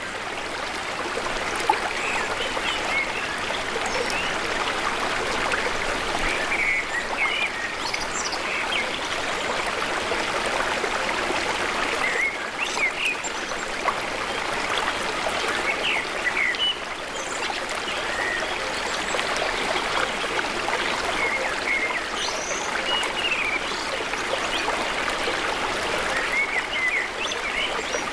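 A stream running steadily, with short bird chirps scattered over it.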